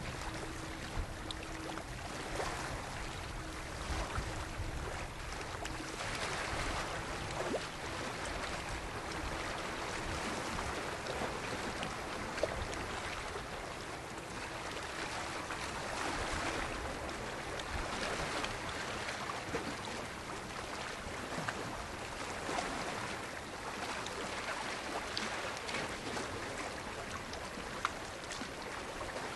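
Lake waves washing in, a steady wash that swells and eases every few seconds, with a few small clicks. A faint low hum sounds under it in the first half and fades out about halfway through.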